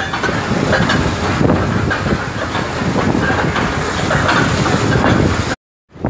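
Wind blowing on the microphone over choppy sea water, a steady rough rumble and hiss. It cuts out completely for a moment near the end.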